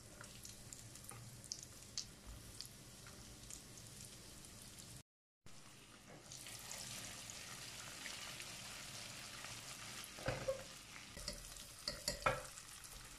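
Breaded mushrooms deep-frying in hot oil in a pot: a faint, steady sizzle. The sound cuts out for a moment about five seconds in. A few light clicks come near the end as a wire skimmer lifts pieces out.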